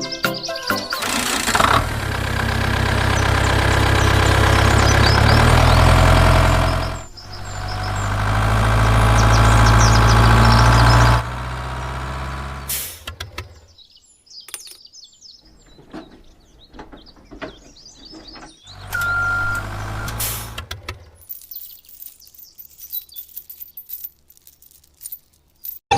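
A motor running steadily in several long spells, its hum starting and stopping, with scattered clicks and knocks in between.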